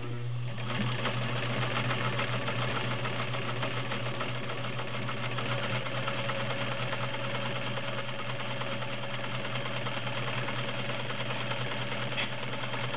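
Dressmaker SAMB-2 all-metal sewing machine running steadily while sewing a zigzag stitch: an even motor hum with fast needle-and-feed clatter.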